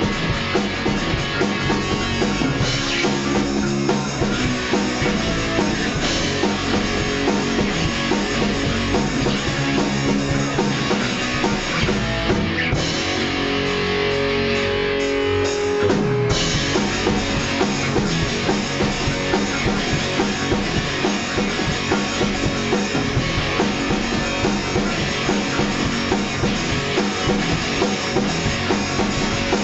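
Punk rock band playing an instrumental passage on electric guitars, bass guitar and drum kit, with no vocals. About 13 seconds in the drums drop away and a guitar holds long notes for a few seconds, then the full band comes back in about 16 seconds in.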